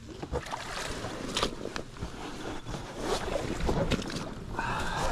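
Water splashing and sloshing, with wind on the microphone and scattered sharp clicks. A brief wavering tone comes near the end.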